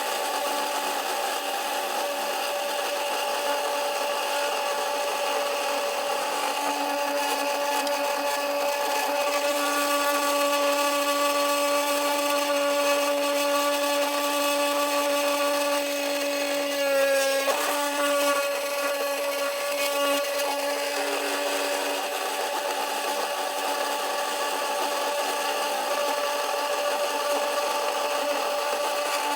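CNC 3018 Pro's small spindle motor whining steadily as its end mill cuts aluminium. A little past halfway the tone briefly wavers and gets louder.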